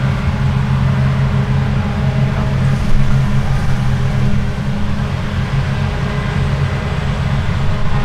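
Claas Lexion 8900 combine harvesters working in a grain field: a steady, deep engine drone under load, with a noisy rush of machinery over it.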